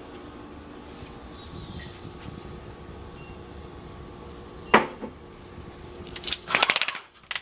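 Faint birds chirping over a steady low room hum, then a sharp click and a brief clattering rattle near the end.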